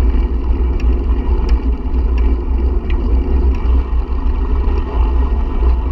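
Wind buffeting the microphone as a loud, low, steady rumble, with a few scattered sharp clicks.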